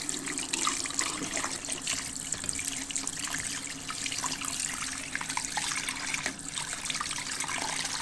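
Tap water running steadily into a sink while a dirty washing machine part is rinsed under it, with small splashes and spatters as it is handled in the stream.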